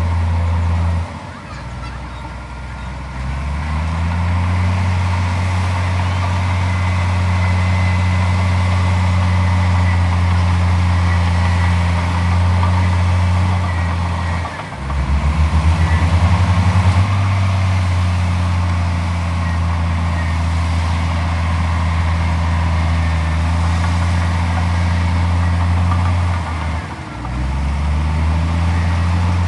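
Komatsu D41P bulldozer's diesel engine running under load. It dips briefly about a second in, again near the middle with a short pulsing throb as it picks back up, and once more near the end.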